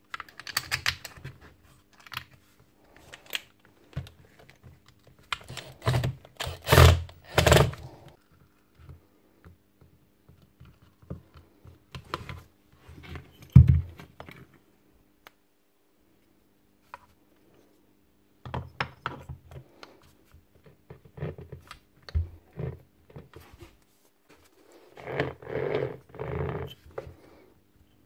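Metal parts of an angle grinder's gear head being handled and fitted by hand: scattered clicks, clinks and knocks, the louder knocks about six to eight seconds in and again near fourteen seconds. Near the end comes a rough grinding rasp as the reassembled gears are turned. The repairer takes it for a replacement bevel gear that does not mesh properly with the old pinion.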